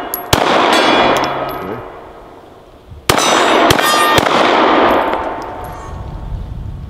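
9mm full-auto Glock 17 firing at a distant steel gong: a shot about a third of a second in and a quick string of shots about three seconds in, each followed by a long echo and the ringing of the struck steel.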